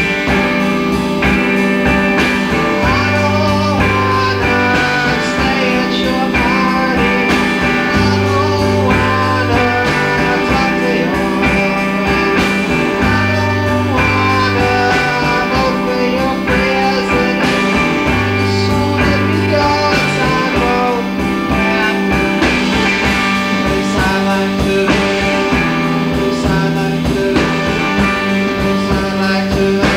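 A three-piece indie rock band of electric guitar, bass guitar and drums playing live, with a male voice singing. The bass repeats the same figure about every five seconds under a steady drum beat.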